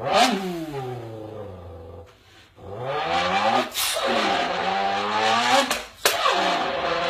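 A man imitating a sports car engine with his voice: a sharp rev up and down at the start falling away into a long descending glide, a brief pause about two seconds in, then a long held, wavering engine note with a short break near the end.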